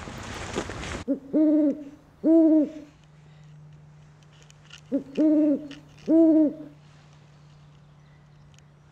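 A bird's hooting call in two phrases, each a short note followed by two longer hoots, the phrases about four seconds apart. Before them, a rustling noise cuts off suddenly about a second in.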